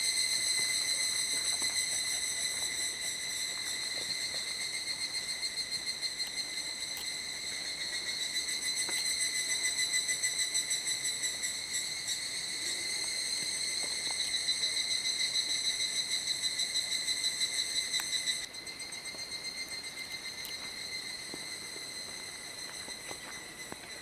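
An insect trilling steadily: a high-pitched, rapidly pulsing buzz that goes on without a break and becomes quieter about three quarters of the way through.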